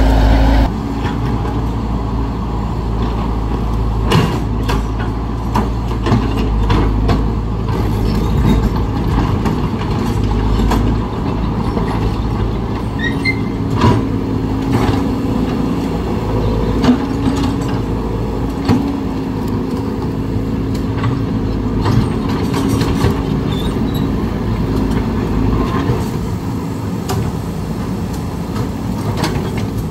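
Caterpillar excavator's diesel engine running steadily, with scattered sharp clanks and knocks from the machine at work.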